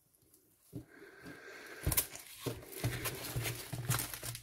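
Rustling and crinkling of a clear plastic sleeve and a stiff rolled diamond-painting canvas being slid out and unrolled on a table. It starts about a second in, with several sharper crackles.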